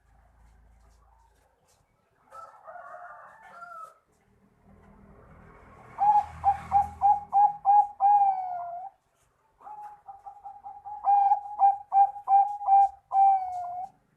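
Zebra dove (perkutut, Bangkok type) singing: two phrases of quick staccato coos, about six and ten seconds in, each ending in one longer drawn-out note.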